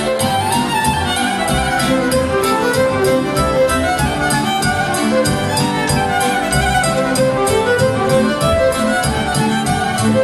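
Live Romanian folk dance music: two violins playing a quick dance tune over a band with a fast, steady beat.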